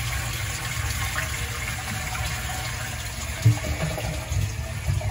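A newly installed one-piece dual-flush toilet flushing on its first test, water rushing steadily through the bowl and tank. A few low thumps sound about three and a half seconds in and near the end.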